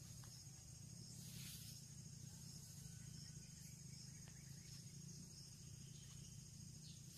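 Near silence: faint steady insect chirring with a high pulse about twice a second, and a brief rustle about a second and a half in.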